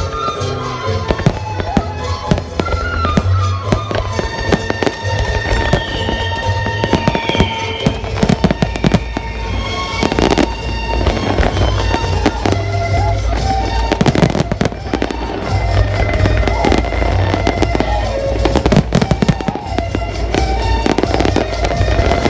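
Fireworks display: many bangs in quick succession, densest about ten seconds in, over loud music with a deep bass line.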